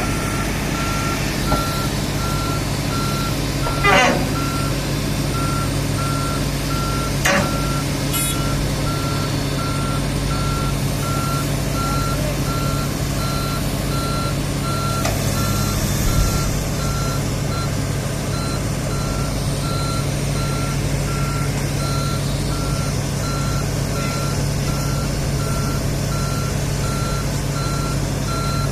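Komatsu PC300 excavator running, its travel alarm beeping steadily at an even pace over the engine's steady hum. Two brief metallic clanks come about 4 and 7 seconds in.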